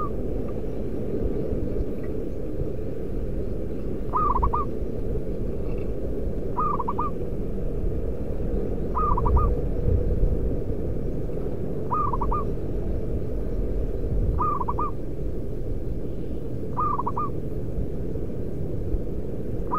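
Zebra dove (perkutut) cooing: short phrases of three or four quick notes, repeated about every two and a half seconds, over a steady low background noise.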